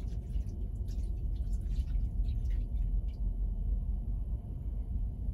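Water poured from a cup into a slow cooker, splashing and trickling onto the pot roast and vegetables for about the first three seconds, over a steady low rumble.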